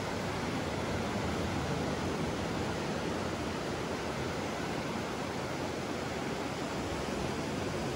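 Ocean surf breaking on the beach below, a steady even rush.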